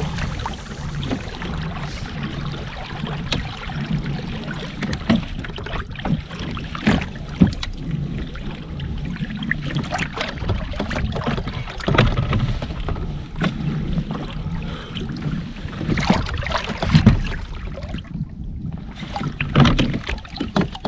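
Irregular knocks and clicks of gear being handled aboard a fishing kayak on the water, over a steady low rumble.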